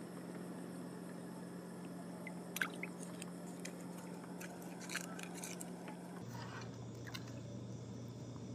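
Soft rustling and a few small clicks of a monofilament drift gill net being handled as fish are picked out of the mesh, over a steady low hum that drops in pitch about six seconds in.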